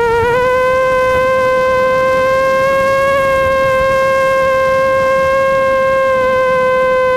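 FPV racing quadcopter's brushless motors whining at a steady throttle, a single pitch that rises slightly just after the start and then holds level.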